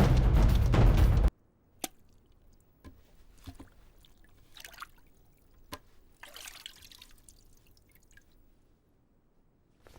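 Loud film soundtrack music stops abruptly about a second in. Then it is nearly quiet, with a few faint isolated clicks and soft brief rustles.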